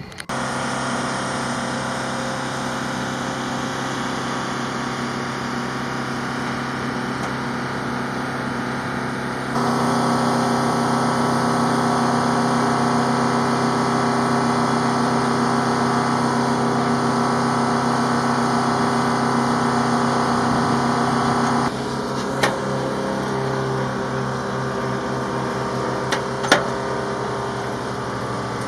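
A steady machine drone with several steady tones, like an engine or generator running. It steps louder about ten seconds in and drops back about twenty-two seconds in, and two sharp knocks sound near the end.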